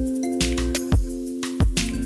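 Background music with a steady beat: electronic track with sustained synth notes, bass thumps and percussive hits.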